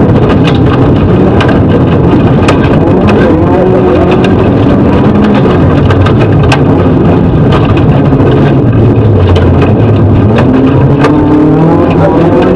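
Rally car's engine heard from inside the cabin while driven hard on a gravel stage. The revs fall as the car slows heavily and climb again near the end. Frequent sharp knocks sound as the car runs over the rough dirt road.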